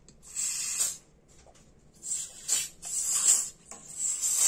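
Butane gas hissing from a refill can pressed through a red adapter onto a Ronson Premier lighter's gas valve, in about four short bursts. Gas is getting through the valve after its cleaning, which shows the valve is open.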